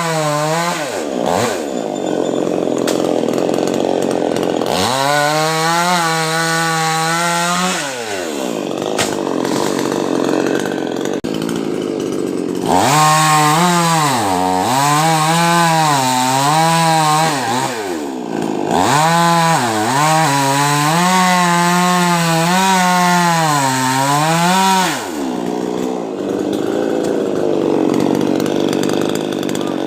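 Chainsaw engine running at high revs in long stretches, its pitch sagging and recovering again and again as it bears into the wood of a coconut tree trunk, with rougher, less steady running in between.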